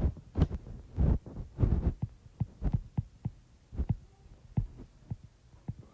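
Writing on a page: a string of short, soft taps and strokes at an uneven pace of roughly three a second.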